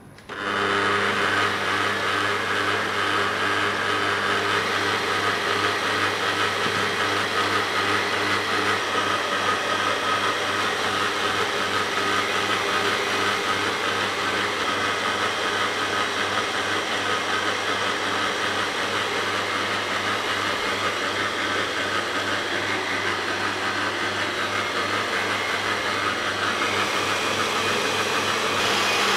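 Electric stand mixer starting up and running steadily at high speed, its whisk beating egg whites in a stainless-steel bowl for an Italian meringue, with hot sugar syrup poured in as it runs. A loud, even whir with a steady hum under it.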